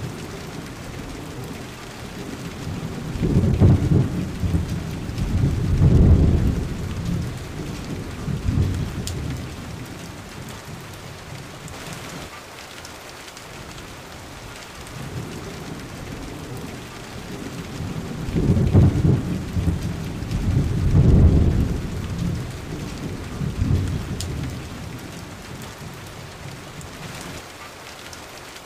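Thunderstorm: steady rain hissing throughout, with two spells of rolling thunder. Each spell is a few deep rumbles that build and fade over about six seconds, the first a few seconds in and the second about two-thirds of the way through.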